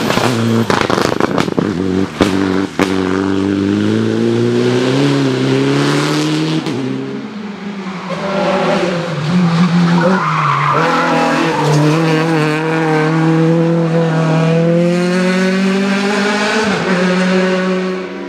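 Two rally cars driven hard through a bend. First a Citroën DS3 rally car, its engine note falling and climbing, with two sharp cracks about two and three seconds in. From about seven seconds in, a first-generation Renault Clio rally car runs at high revs with its tyres squealing.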